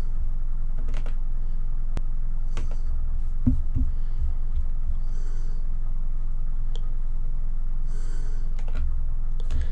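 Scattered clicks and taps from a computer mouse and keyboard over a steady low electrical hum.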